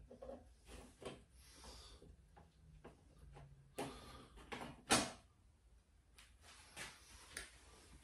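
Scattered light clicks and knocks of a motorcycle's plastic rear number plate and its fasteners being undone and handled, with two sharper clacks about four and five seconds in.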